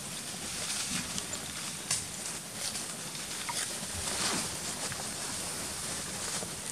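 Outdoor forest ambience: a steady hiss with scattered light clicks and rustles, and no animal calls.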